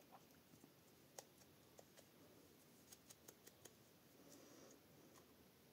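Near silence with scattered faint light clicks and taps, a quick run of them about three seconds in: small die-cut paper pieces handled and dabbed at the edges with a foam ink blending tool.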